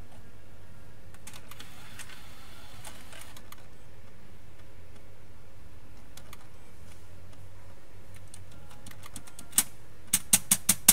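Sharp plastic clicks from fingers working the disc-loading mechanism of a PS4 Slim's opened Blu-ray drive: a few faint clicks about two seconds in, then a quick run of about six loud clicks near the end. A low steady hum sits underneath.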